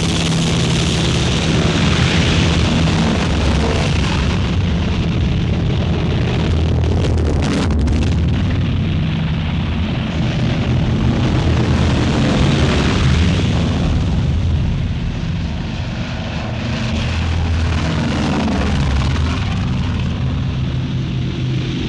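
Film soundtrack of B-25 Mitchell bombers' propeller engines running with a loud, steady drone. The loudness dips slightly about 15 seconds in.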